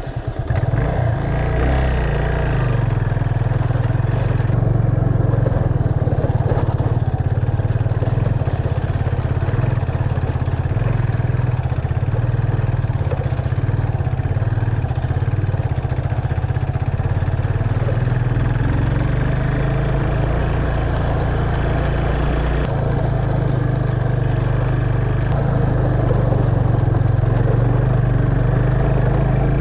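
Yamaha FZ25's freshly rebuilt single-cylinder engine running as the motorcycle is ridden over a rough, stony dirt track, its pitch shifting a few times with throttle and speed.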